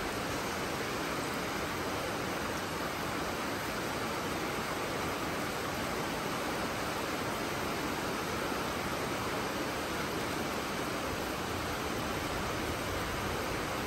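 Steady rain falling, an even hiss that neither swells nor breaks.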